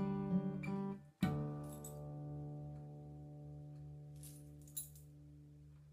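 Acoustic guitar strummed to the end of a song, then a final chord struck about a second in that rings and slowly dies away. A couple of faint clicks come near the end.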